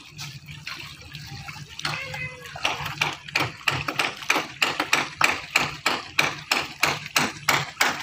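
Shallow water splashing and slapping as a long wooden boat is pushed through it by someone wading, in quick regular strokes about three a second from about two and a half seconds in, over a low steady hum.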